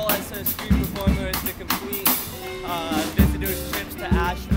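Street buskers playing live music: a drum kit's kick-drum thumps and sharp snare hits under a wavering melodic line.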